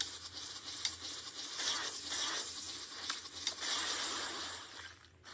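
Faint rustling and handling noise in uneven swells, with a few light clicks, over a low steady hum.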